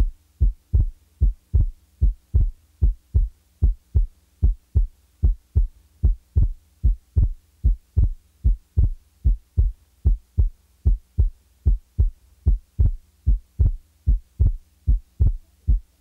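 Human heart sounds as heard through a stethoscope: a steady, regular run of lub-dub beats with a faint low hum behind them. The recording demonstrates the normal second heart sound, the closure of the aortic and pulmonic valves, which usually splits on inspiration and is heard as single on expiration.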